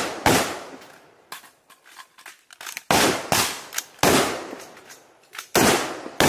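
M4-style carbines firing single shots in uneven succession on a rifle range: about six loud cracks, some close together in pairs, with fainter shots from other rifles between them. Each shot has a short echoing tail.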